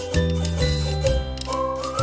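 Background music: a light, cheerful instrumental with a bass line and a whistled or flute-like melody stepping between held notes.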